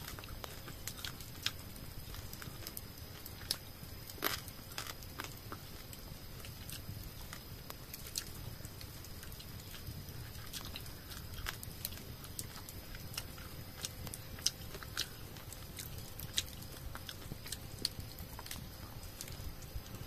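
Close-up eating sounds: small wet clicks and crunches of someone chewing grilled bird meat, scattered irregularly.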